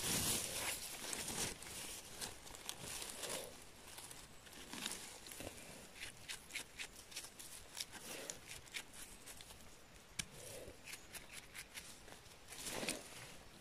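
Bristle brush scratching dirt and needles off freshly picked chanterelles in quick, uneven strokes, mixed with the rustle of moss and forest litter as the mushrooms are picked.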